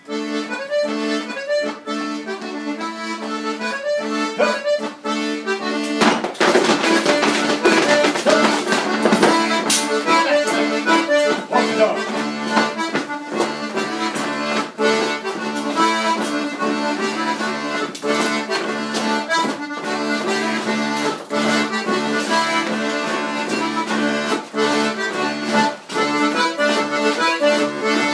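Accordion playing a lively traditional dance tune for a rapper sword dance. It starts sharply at the beginning, with many sharp clicks throughout and a loud burst of noise about six seconds in.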